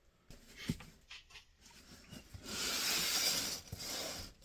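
Packaging being handled: a few light knocks and taps, then about two seconds of loud rustling as a box or its wrapping is opened.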